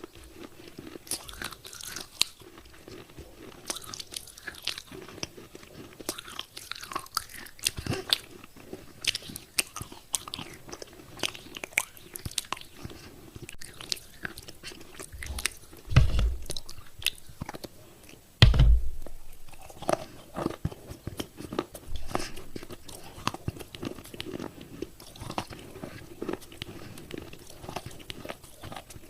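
Close-miked biting and chewing of wet clay pot pieces: a dense, irregular run of small crisp crunches. Two heavy low thumps come a little past the middle, about two and a half seconds apart.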